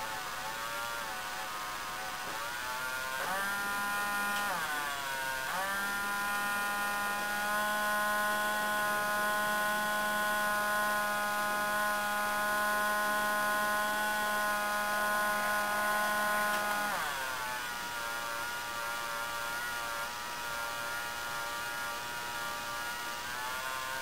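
Rapido model steam generator car's onboard sound effect playing through its small speaker: a buzzing, whining steam-generator drone. It climbs in pitch about three seconds in, dips and climbs again around five seconds, holds steady, then sinks and wavers about seventeen seconds in.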